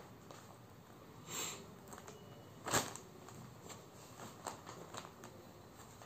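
Clothing and its clear plastic wrapping rustling as folded garments are handled and one is unfolded: a soft swish about a second and a half in, a sharp crackle about three seconds in, and light scattered clicks.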